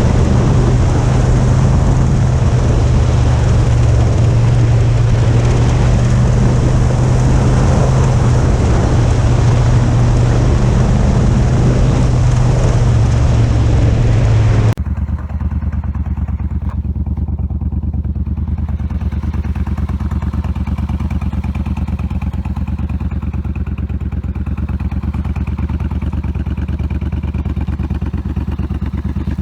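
A large engine running steadily and loudly, with a strong low drone and a harsh high noise over it. About halfway through it cuts off suddenly into a quieter, steady low engine hum.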